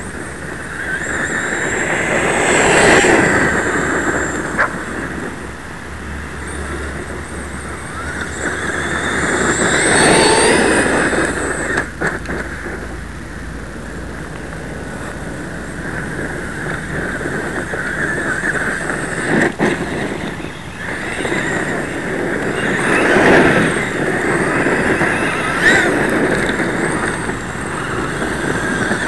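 Traxxas E-Maxx electric RC monster truck driving on dirt and gravel, swelling louder several times as it speeds up, with a high motor whine rising in pitch during the bursts and a few short knocks.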